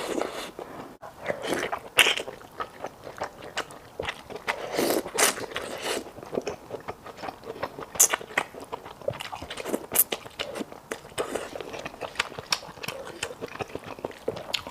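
Close-miked eating of malatang: chewing and crunching, a steady string of short crisp clicks and wet mouth smacks.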